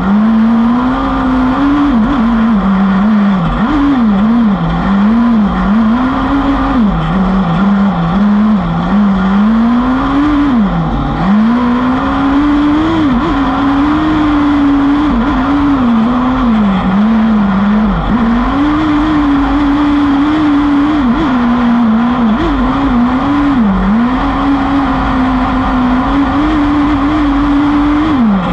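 Autocross buggy's engine heard from onboard at full race pace, its revs climbing and dropping every second or two as the driver accelerates, lifts and shifts, over a steady rush of noise.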